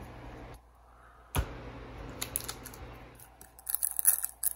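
A single knock about a second and a half in, then crisp crinkling and tearing near the end: a foil trading-card pack being handled and ripped open.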